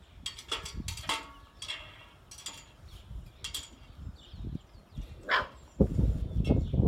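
Belgian Malinois puppies yipping and barking in short, high-pitched bursts while they play, several in the first few seconds and another about five seconds in. A loud low rumble comes in near the end.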